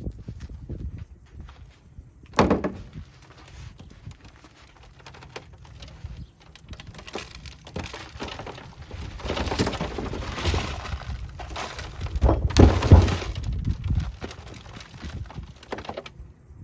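Handling noise from a bare-root rose bush packed in sawdust: crackling and rustling of its wrapping and sawdust, with a sharp knock about two seconds in and heavier rustling and thumps in the second half.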